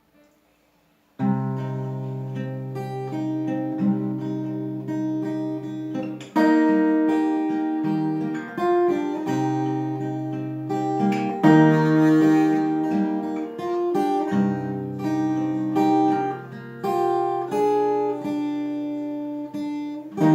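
Acoustic guitar strumming and picking chords, the instrumental introduction to a Korean folk song before the vocals come in. It starts about a second in.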